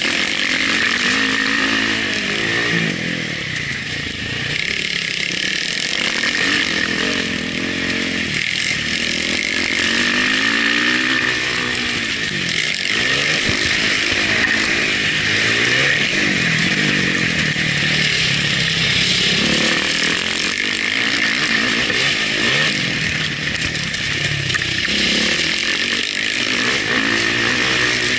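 Motocross bike engine heard on board at racing speed, revving up and down again and again as the rider accelerates and shifts through the corners, over a steady rush of wind noise.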